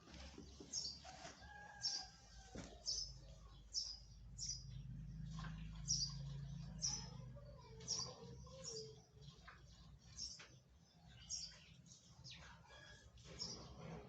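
A bird chirping over and over, a short high chirp about once a second, with a low rumble underneath in the middle.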